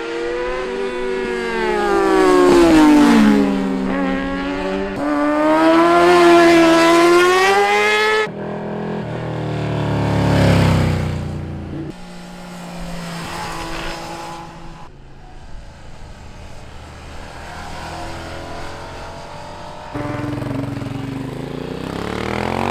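Sport motorcycles passing on a canyon road, engines revving up and down in pitch as they go through the gears. The sound cuts abruptly about eight seconds in to another bike approaching with a rising rush that peaks near ten seconds, followed by quieter engine sound broken by further abrupt cuts.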